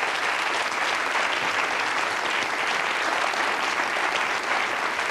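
Large studio audience applauding, steady dense clapping.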